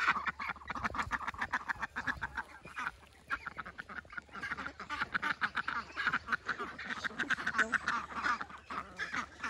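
Domestic ducks quacking rapidly and almost without pause. An adult duck is scolding newly introduced ducklings, a territorial protest at the newcomers.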